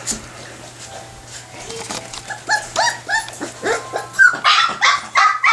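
Month-old Nova Scotia Duck Tolling Retriever puppies yipping in short, high calls. The calls start about two seconds in, two or three a second, and grow louder and come faster toward the end.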